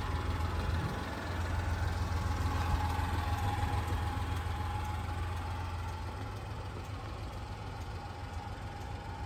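Honda Acty kei truck's small three-cylinder engine idling steadily.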